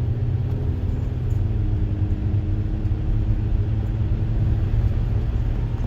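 Inside a 2007 Toyota Sienna minivan driving through thick snow: a steady low rumble of road and engine noise, with a faint, even engine hum over it.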